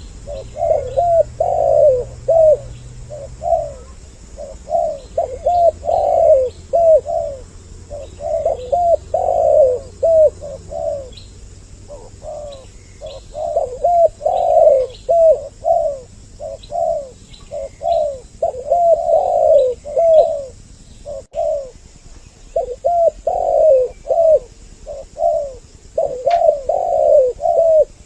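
Spotted doves cooing, phrase after phrase of short low coo notes with brief pauses between them, two birds' calls overlapping as in a double-voice lure call used to draw in other doves.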